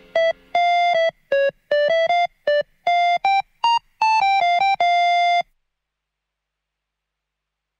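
A short melody of single notes on a synthesizer with a plain electronic tone, quick notes broken by a few longer held ones. It stops suddenly about five and a half seconds in.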